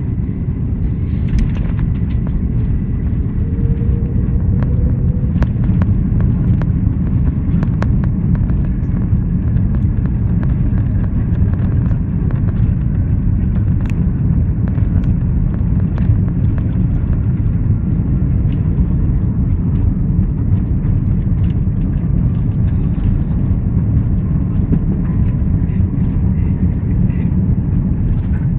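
Jet airliner's landing roll just after touchdown, heard from inside the cabin: a loud, steady rumble of the aircraft racing down the runway, with a few faint clicks and rattles.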